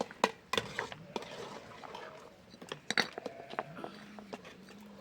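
Small stones knocking and clacking against one another as they are picked up and set in place, a few sharp clicks at irregular intervals.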